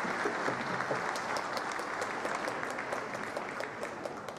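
A crowd applauding, with many individual claps, dying down near the end.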